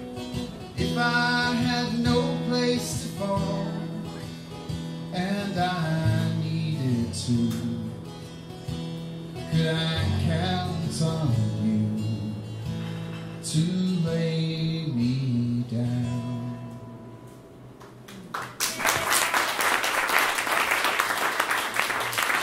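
Man singing with strummed acoustic guitar as a song closes. The music fades out, and about three-quarters of the way through the audience bursts into applause, which carries on to the end.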